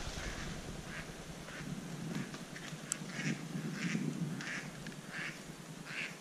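A large flock of mallards, just flushed off the water, quacking at a distance: a steady run of short quacks, roughly one or two a second. A single sharp click near the middle.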